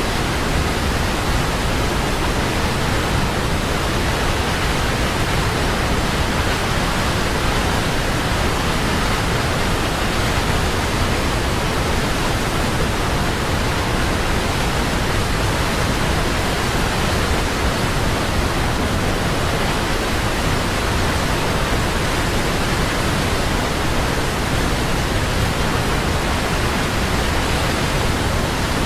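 Large waterfall: a loud, steady roar of falling water, unchanging.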